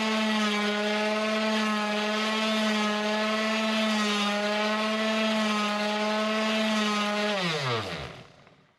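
Electric orbital sander running steadily with an even hum, then switched off about seven seconds in, its pitch falling as the motor winds down to a stop.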